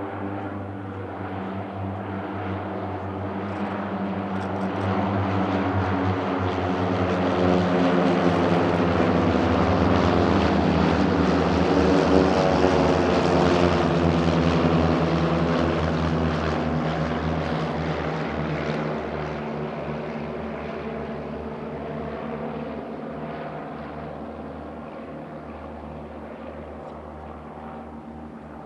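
A formation of Saab Safari (MFI-17) propeller trainers flying past, their four-cylinder piston engines droning steadily. The sound builds, is loudest around the middle, drops slightly in pitch as they pass, then fades away.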